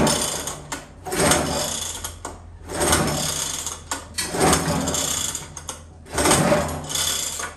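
Small petrol engine of an old Atco cylinder lawnmower being pull-started on choke: five hard pulls on the recoil starter, each about a second of rasping cord and ratchet as the engine turns over, without catching.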